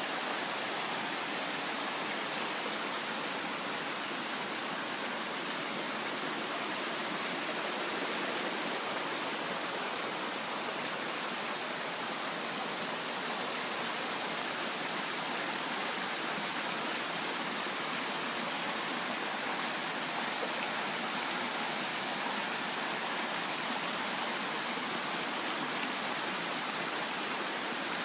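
A creek running, a steady, even rush of flowing water that does not change.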